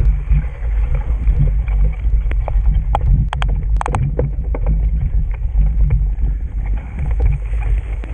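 Steady low rumble of wind and riding noise buffeting a bike rider's camera microphone on a trail ride, with a quick cluster of sharp clicks or rattles about three to four seconds in.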